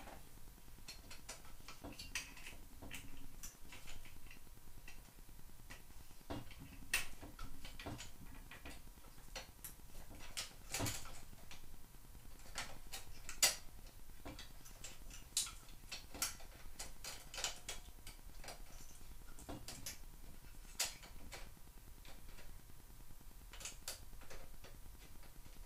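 Hand tools working bolts and parts loose on an ATV's rear axle housing: scattered, irregular metal clicks, taps and clinks, with a louder knock about thirteen seconds in.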